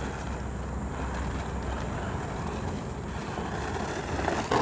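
Hosim 4x4 RC truck driving over rough dirt on battery power, its motor and tyres making a steady noise, with a louder burst of noise near the end.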